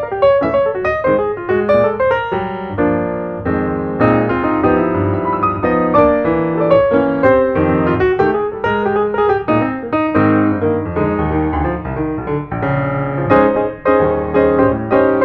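Background music played on piano: a melody over chords, with notes struck in quick succession.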